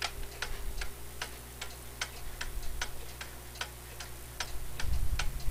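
Jauch J77 grandfather clock movement's escapement ticking in a steady tick-tock, evenly spaced ticks a little over two a second: the clock is now in beat after the beat adjustment on the pendulum leader. A low rumble comes near the end.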